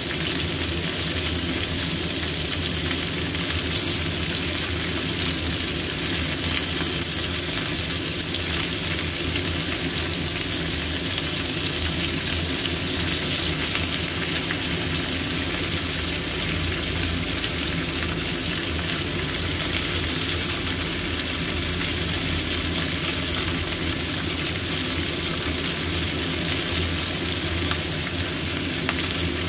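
Large peeled shrimp frying in hot oil in a pan: a steady sizzle as they brown.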